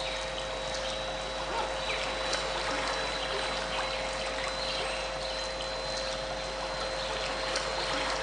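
Trickling, flowing stream water with steady electronic tones held beneath it: two close mid-pitched tones and a fainter high one, unchanging throughout.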